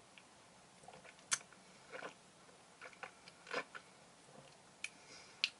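Mouth sounds of someone tasting a drink: scattered soft lip smacks and tongue clicks, the sharpest about a second in and near the end.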